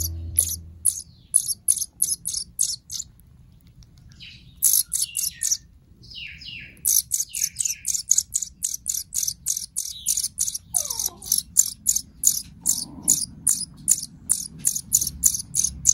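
Saffron finch nestling giving rapid, repeated high begging chirps, about three or four a second, as it is hand-fed; the chirping pauses for a few seconds early on, then resumes steadily.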